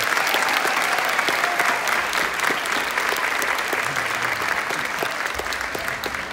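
Large audience clapping at the end of a sung number, a dense steady applause that slowly dies down near the end.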